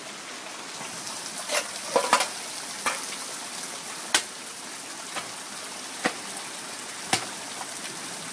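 Heavy rain hissing steadily, with several sharp, irregular knocks or taps over it.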